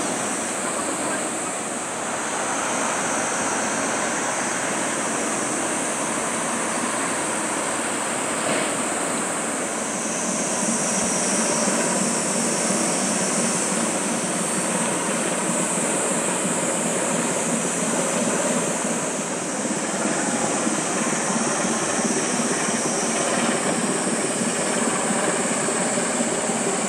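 Steady drone of a small general cargo ship's diesel engine passing close by, with the rush of water from its bow wave and wake.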